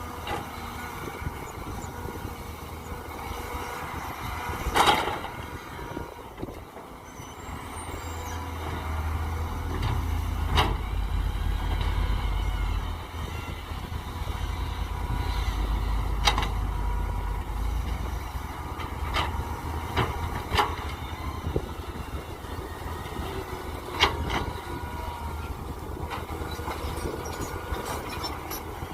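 Mini excavator engine running as it digs. The engine rumble swells for about ten seconds in the middle, and sharp metallic clanks from the bucket and arm come every few seconds.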